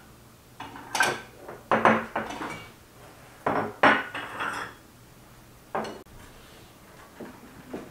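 Small porcelain plates clinking as they are lifted off a stack on a tea tray and set down on a table: a series of sharp clinks over the first six seconds, then quiet.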